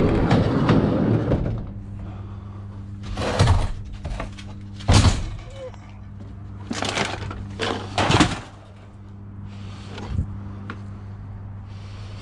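A run of clattering knocks and bangs from discarded items being handled and moved, over a steady low hum.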